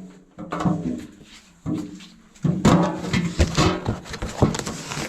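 Metal collectible tins being handled and set down, a string of clanks and knocks that comes thickest from about two and a half to four and a half seconds in.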